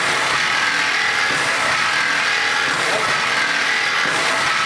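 Fish and meat slicing machine running with a steady mechanical noise.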